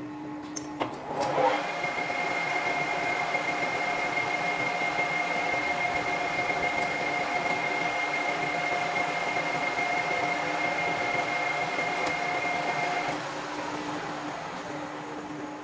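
A few clicks, then a metal lathe starts up about a second in and its chuck runs with a steady whine. The motor is switched off about two seconds before the end, and the spindle coasts down with a falling whine.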